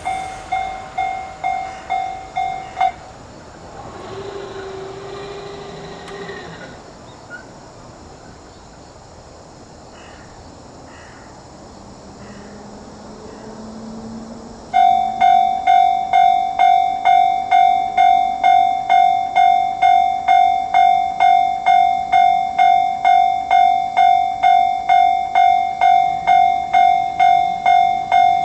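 Japanese railroad crossing warning bell ringing its fast, steady ding-ding, about two strikes a second. It falls silent about three seconds in, leaving a quieter lull, then starts up again loudly about halfway through.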